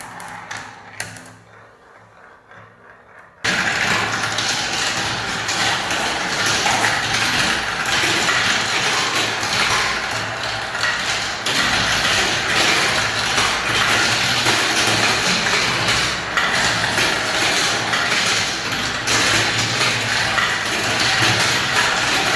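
A few clicks of marbles on a marble run, then about three and a half seconds in a sudden, dense, steady clatter of many balls rolling and knocking together down spiral ramps.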